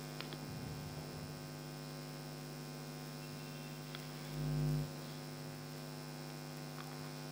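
Steady electrical mains hum on the recording, with faint rustles of cloth being handled in the first second or so and a few light ticks. A short low bump comes about four and a half seconds in.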